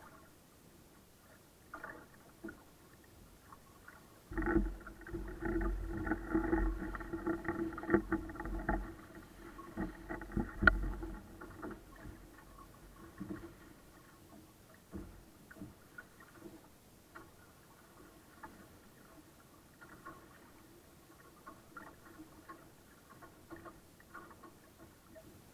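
A small sailboat's hull knocking and splashing as it moves through choppy water, heard muffled. A loud stretch of rumbling and knocks starts about four seconds in and lasts some eight seconds. Scattered lighter knocks follow.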